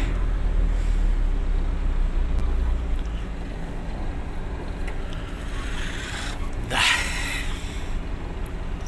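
Truck engine running, heard from inside the cab; its low rumble eases about three seconds in. A short rushing hiss sounds about seven seconds in.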